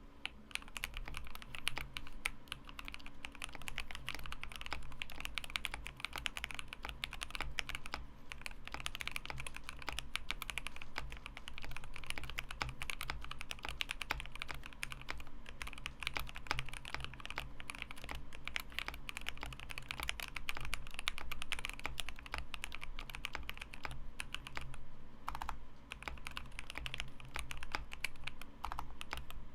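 Continuous fast typing on a KBD67 Lite R3 mechanical keyboard: dense key strokes from Alpaca linear switches, lubed with Krytox 205g0 and filmed, on a polycarbonate plate under PBT keycaps.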